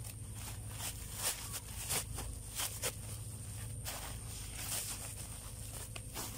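Dry banana leaves crackling and rustling as they are pressed by hand into a woven plastic sack, a string of irregular sharp crinkles.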